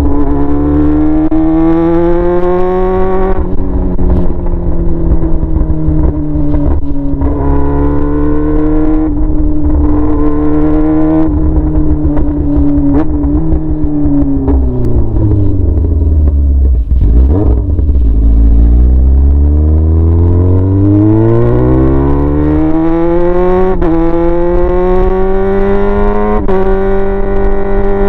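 Yamaha R6's inline-four engine running open through a straight pipe with no muffler while the bike is ridden. The engine rises and falls in pitch and winds down to a low rumble about two-thirds of the way through. It then climbs again with a couple of short dips as it shifts up.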